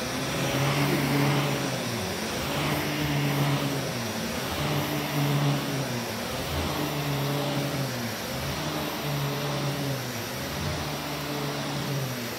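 Vax Commercial VCU-03C upright vacuum cleaner running on carpet, its motor hum dipping and rising in pitch about every two seconds as the head is pushed and pulled back and forth.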